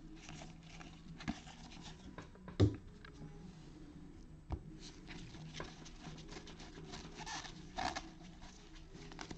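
Faint rubbing and light ticking of trading cards being slid and flicked against each other by gloved hands, with a sharper tap a few seconds in.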